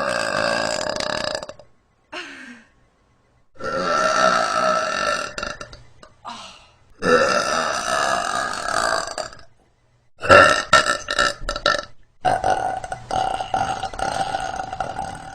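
A woman belching over and over: about five long, drawn-out belches of two to three seconds each, with a couple of short ones in between and brief pauses separating them.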